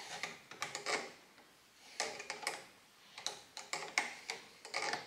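Pliers working the threaded clutch cable adjuster at a motorcycle's clutch lever: small metallic clicks and ticks in short clusters with brief pauses, as the adjuster is turned out to take up slack in the clutch cable.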